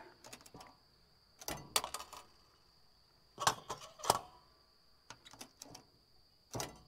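Coins going into a parking ticket machine's coin slot and clinking down into its metal coin-return tray, several sharp clinks a second or so apart. The machine is rejecting the coins and dropping them straight back out.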